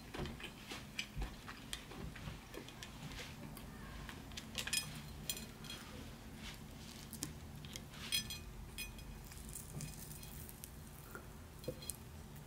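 Long fingernails and fingers clicking and tapping against a plate while picking apart pieces of stewed meat and bone in sauce; scattered small clicks, a few sharper ones with a bright ring.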